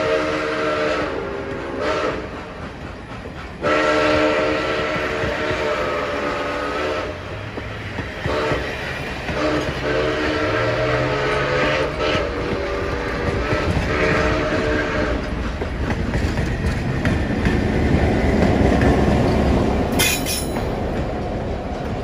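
Steam locomotive whistle sounding a chord in several long blasts with a short one between, fading out about 15 s in, over the clickety-clack of passenger cars rolling by on the rails. A deeper rumble builds near the end as the diesel locomotive on the rear of the train draws close.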